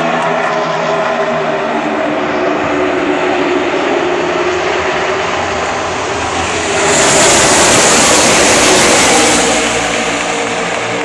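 A field of NASCAR Sprint Cup stock cars racing, their V8 engines droning steadily around the track. About seven seconds in, the pack passes close by and swells to the loudest point for a couple of seconds, then fades away.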